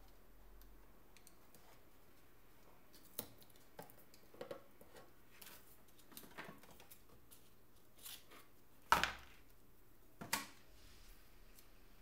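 Scattered small clicks, taps and rustles of hands handling a phone circuit board and small tools on a cardboard box, with two louder knocks about nine and ten seconds in.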